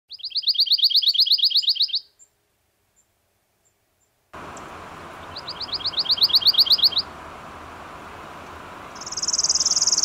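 Pine warbler singing: rapid, even musical trills of about two seconds each, three times, the last one near the end higher in pitch. A steady outdoor hiss comes in under the song about four seconds in.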